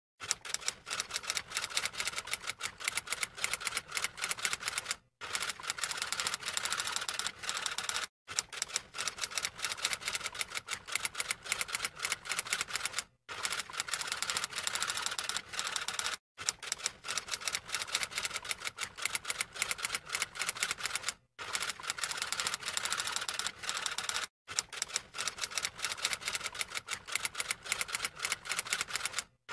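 Typing sound effect for on-screen text appearing letter by letter: rapid, continuous keystroke clicks broken by a short silence every three to five seconds, as the effect loops.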